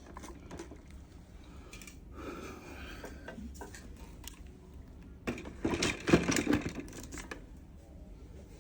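Clicks and knocks from a high-speed blender being handled and its buttons pressed for a test, over a faint low hum. The loudest cluster of clicks comes about five to seven seconds in.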